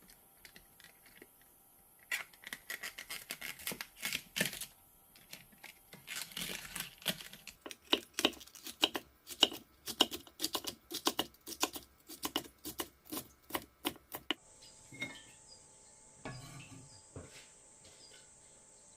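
Kitchen food preparation: rustling and scraping at first, then a quick steady run of knife strokes on a cutting board, about three a second, that stops suddenly, followed by a few scattered knocks.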